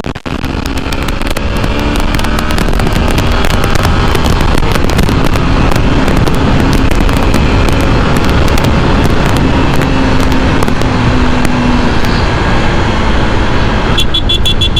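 Wind rushing and crackling over the camera microphone of a motorcycle riding at speed. Underneath, the Yamaha FZ V3's engine runs as a faint steady hum that drifts in pitch.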